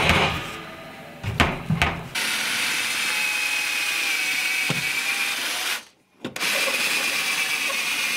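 Cordless drill with a long bit boring through a wooden frame board, running steadily with a high whine after a few knocks in the first two seconds. It stops for a moment about six seconds in, then runs again.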